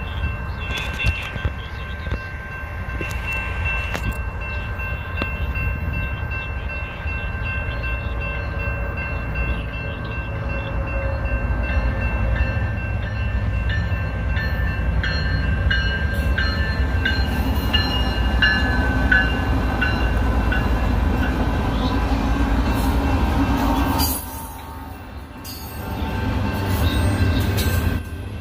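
Union Pacific intermodal freight train rolling through a grade crossing: a steady low rumble from the train, with the crossing bell's ringing tones over it. The sound drops for a couple of seconds near the end, then comes back.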